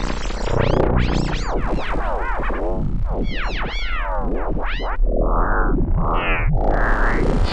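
Synthesized electronic music: dense layers of swooping tones that rise and fall in quick arcs over a steady low drone. About five seconds in, the texture thins and the sweeps climb to lower peaks.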